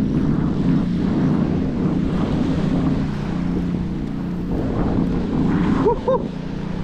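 Wind buffeting the microphone over the wash of small surf waves on the beach. Near the end come two short, high chirps.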